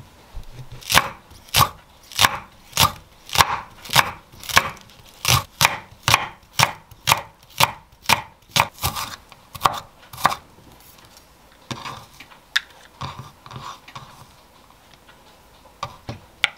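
Chef's knife slicing a Korean green onion (daepa) thinly on a wooden cutting board: a steady series of knife strikes on the board, about two a second, stopping about ten seconds in. After that come a few lighter taps as the slices are gathered off the board.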